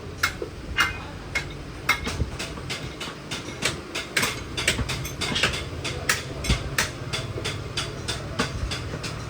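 Irregular sharp metal taps and knocks, several a second, as parts are struck or handled, over a low steady hum.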